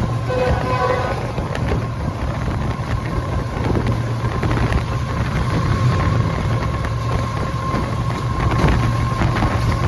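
Pakistan Railways GEU-40 diesel-electric locomotive running hard, a steady loud low engine drone with a thin high steady tone over it, and some wind on the microphone.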